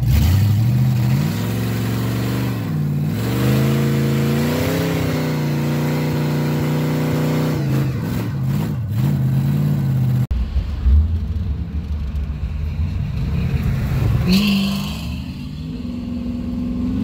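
Pickup truck engine revving hard and holding during a burnout, its pitch dipping and climbing a few times, with the rear tyre spinning and smoking. After an abrupt cut about ten seconds in, an engine and road noise are heard from a moving vehicle, with the engine note climbing near the end.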